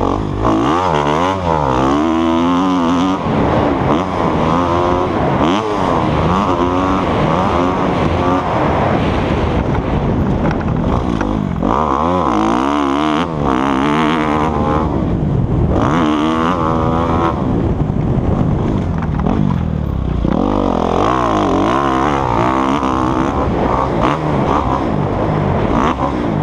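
Motocross dirt bike engine revving hard and easing off again and again, its pitch climbing and falling as the throttle is worked through the track's corners and straights.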